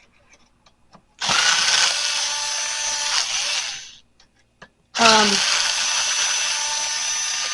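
Power drill running in two runs of about three seconds each, with a few light clicks before each run. The pitch shifts as it starts up.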